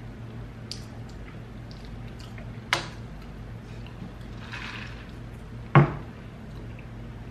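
Close-miked eating sounds: wet chewing and lip smacking, with small clicks throughout and two sharp smacks, one about three seconds in and a louder one with a low thump near six seconds.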